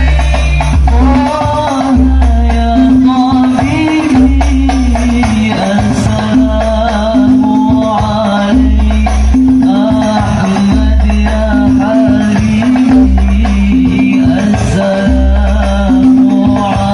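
Hadrah banjari ensemble performing a sholawat: a voice sings a wavering melody over frame-drum percussion and a deep bass pulse that recurs about every two seconds.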